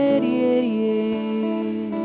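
Slow, soft worship music of long held notes that step to a new pitch a few times.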